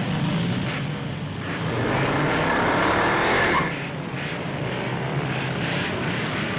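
Motorcycle engine running, building louder for a couple of seconds and then dropping off suddenly about three and a half seconds in to a steady run.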